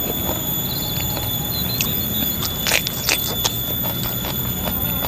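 Steady high-pitched 'nging' whine of an animal, held on several level tones, under close-up chewing and eating by hand, with a few sharp clicks near the middle.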